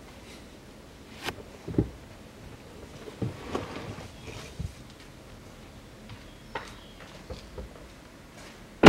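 Scattered faint knocks and rustling handling noises, ending in one sharp, loud knock.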